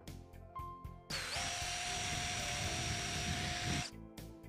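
Cordless drill with a 1/8-inch bit boring an angled pocket hole into oak, running at a steady speed for about three seconds from about a second in, then stopping. Background music plays under it.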